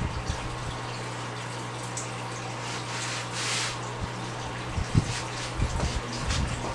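Water splashing and dripping lightly, with one brief louder swoosh about three and a half seconds in and small drips near the end, over a steady low hum.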